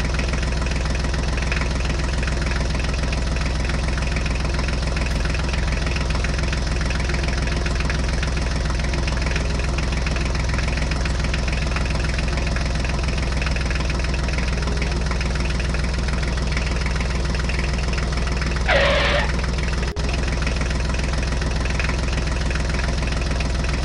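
Diesel tractor engine running steadily with a fast knocking beat, laid over the picture as a sound effect. Near the end, a brief wavering higher-pitched sound rises above it.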